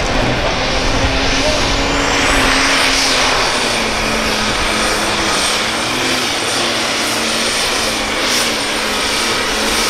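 Super stock diesel pulling tractor running flat out under full load as it drags the sled, a dense, loud engine note. A high whistle rises about two seconds in and then holds steady.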